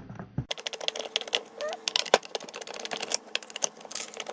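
Rapid, uneven clicking of a ratcheting driver turning out T20 Torx bolts inside a car side-mirror housing, with a few sharper clicks.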